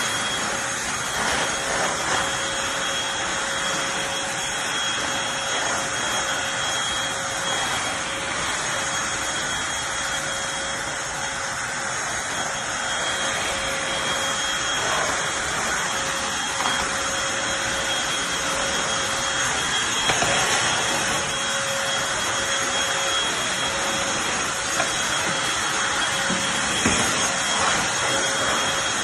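Eureka Blaze cordless stick vacuum running steadily: rushing air under a constant motor whine, with a few light knocks and scrapes here and there.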